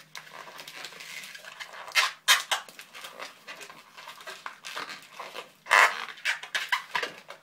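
Latex modelling balloon (a white 260) squeaking and rubbing under the fingers as a small bubble is twisted and wrapped around itself. Irregular squeaks throughout, with louder ones about two seconds in and again near six seconds.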